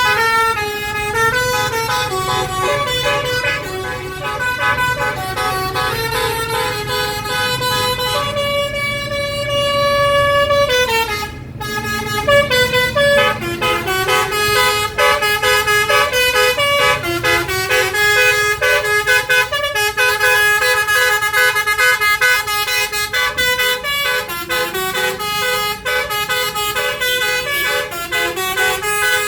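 Tour bus's Basuri telolet horn playing a long melody of stepped, multi-note horn tones, with a held chord about a third of the way through and a brief break just before the middle. A low vehicle rumble runs underneath.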